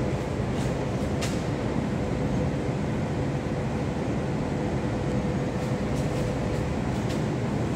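Steady, loud industrial machinery din with a constant electrical hum tone running through it, typical of a mill's switchgear room; a few faint light ticks sound over it, the clearest about a second in.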